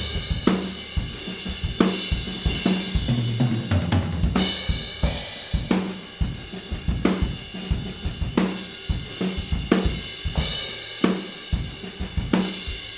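Recorded acoustic drum kit playing a steady groove, heard through the full mix of all its close, overhead and room microphones: kick, snare and hi-hat with cymbal wash over a regular beat.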